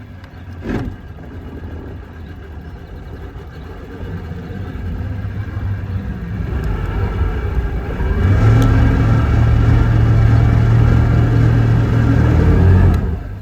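An engine running and building up, louder in steady low tones from about eight seconds in, with a short thump about a second in.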